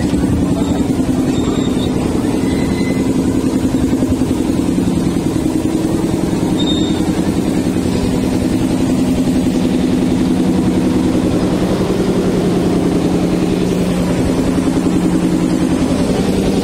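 Engine of a small ride-on park train running steadily as the train rolls along, a low hum whose pitch shifts slightly a few times.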